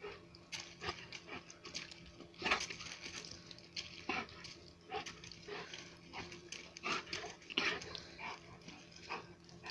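A dog making a string of short, irregular noisy sounds, one or two a second, the loudest about two and a half seconds in.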